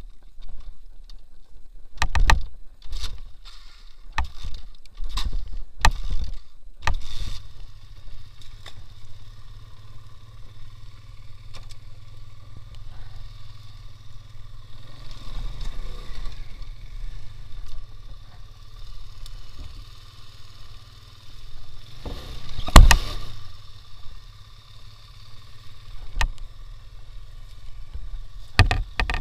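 A series of sharp knocks for the first seven seconds, then the engine of a two-wheel-drive off-road motorcycle running steadily as it is ridden. There is a loud knock about 23 seconds in.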